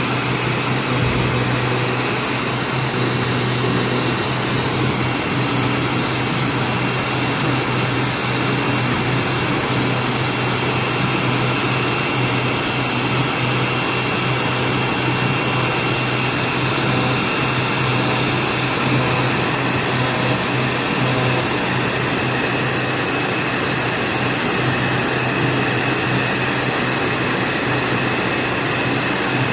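Wood CNC router running steadily: a continuous, even machine noise like a vacuum, with a constant low hum and a faint high tone.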